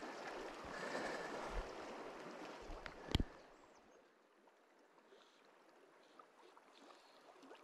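Shallow river water running over a stony bed, a steady rushing hiss. A sharp click comes about three seconds in, and after it the water drops to a faint hiss.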